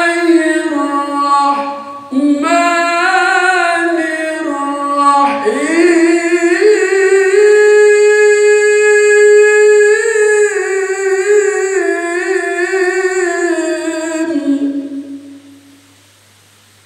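A man's voice in melodic Qur'anic recitation (tilawah) into a handheld microphone: long, drawn-out phrases with wavering ornaments, the longest held for about four seconds in the middle. The voice stops about 15 seconds in, leaving a faint steady hum.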